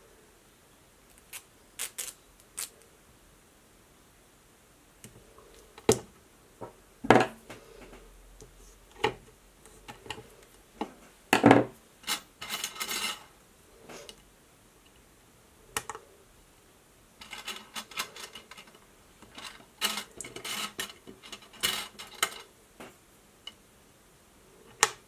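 Thin steel cutting dies handled by hand: picked from a pile and set down on a sheet, giving scattered light metallic clicks and clinks, some single, some in quick clusters.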